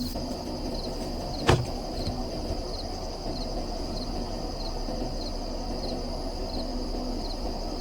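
Insects buzzing in a steady high drone, with a short chirp repeating about every half second, over a low rumble. One sharp knock about a second and a half in.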